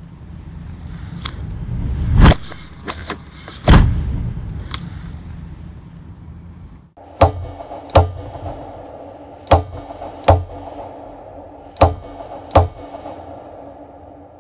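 Designed sound effects: a low rumble swells and breaks into two heavy hits about a second and a half apart. After a sudden cut, a steady hum runs under three pairs of sharp metallic-sounding hits.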